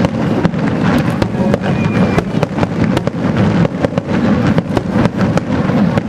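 Aerial fireworks display: a dense, continuous barrage of sharp bangs and crackles, several a second, over a steady low rumble.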